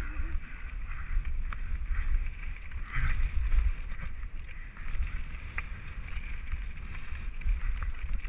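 Wind buffeting the action camera's microphone as a mountain bike rolls fast down a gravel trail, with tyres on loose gravel and a few sharp clicks and rattles from the bike.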